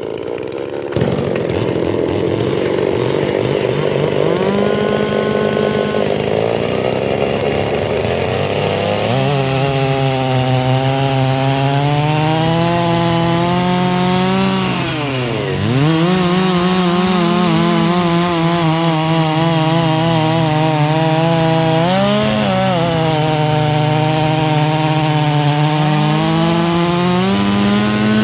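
Holzfforma two-stroke chainsaw with a 10-pin rim sprocket running at high revs and cutting through wood. The engine note dips sharply about halfway through as the chain loads up, then recovers, and it wavers a little again later in the cut.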